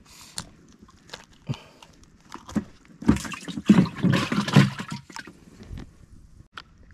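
Water splashing and dripping, with scattered clicks and knocks; the splashing is loudest and densest from about three to five seconds in.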